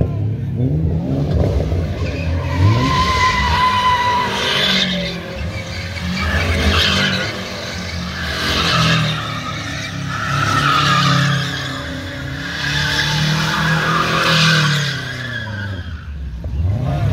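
A car doing donuts: the engine revving hard while the tyres squeal and skid, the noise rising and falling in waves every two to three seconds as the car circles.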